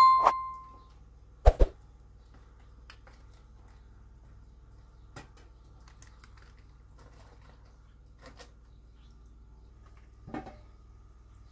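A bell-like ding that fades within a second at the start, followed by two sharp clicks about a second and a half in. Then faint clinks and handling of an aluminium kettle and pot, ending with a soft metal clunk as the pot is set down on a rug over concrete about ten seconds in.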